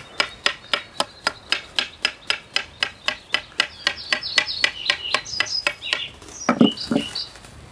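Knife tapping along a fresh, sappy willow stick in an even run of light knocks, about three or four a second, that stop about five and a half seconds in: beating the bark so it loosens from the wood for a willow whistle. Birds chirp faintly in the background.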